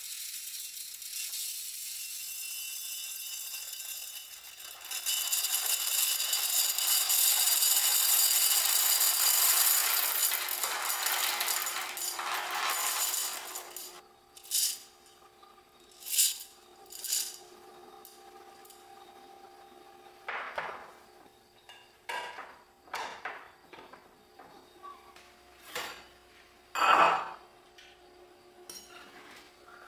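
A steady hiss for about the first fourteen seconds, growing louder about five seconds in and then fading, followed by a run of light clinks and taps of dishes and utensils, the loudest near the end.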